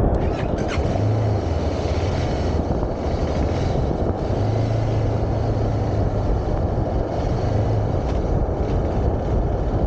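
Motorcycle engine running as the bike pulls away and rides off, with a dense wind rumble on the microphone and a low engine hum that comes and goes.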